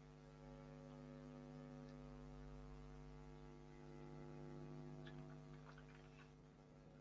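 Near silence: a faint steady electrical hum, with a few faint keyboard key clicks about five to six seconds in as an email address is typed.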